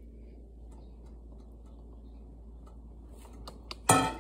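Faint scattered ticks from handling a metal bowl of grated ginger over a plastic zip-top bag, under a low steady hum. Near the end comes a single loud clank with a brief ring as the metal bowl is put down.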